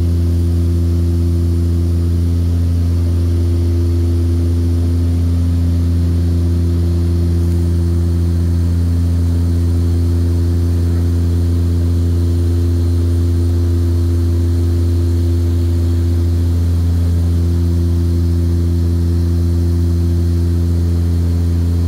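Propeller aircraft in level flight, heard from inside the passenger cabin: a loud, steady low propeller drone with a few steady humming tones above it, unchanging throughout.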